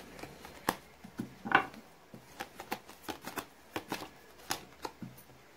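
Tarot cards being shuffled by hand: an irregular run of quick card snaps and flicks, the loudest about one and a half seconds in.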